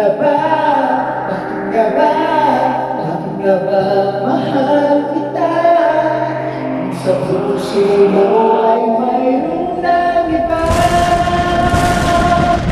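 A man singing a Tagalog ballad into a handheld microphone, with long held notes. Near the end a loud rushing crash swells in under a held note.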